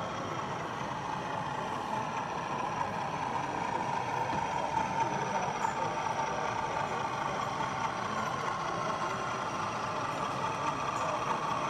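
Sound-fitted OO gauge model diesel locomotive running, its engine sound playing from the onboard speaker as a steady note that grows louder over the first few seconds as it approaches. A murmur of exhibition-hall voices runs underneath.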